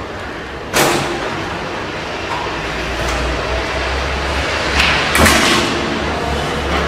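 Two sharp knocks, one about a second in and a louder cluster around five seconds in, over a steady low hum and hiss.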